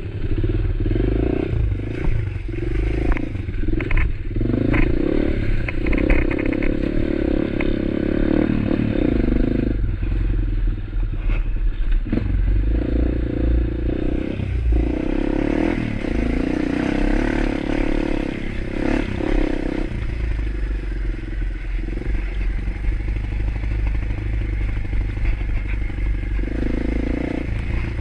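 Motorcycle engine running while riding, its note swelling and easing every few seconds with the throttle, over a steady low rumble. There are scattered knocks and rattles, most of them in the first few seconds.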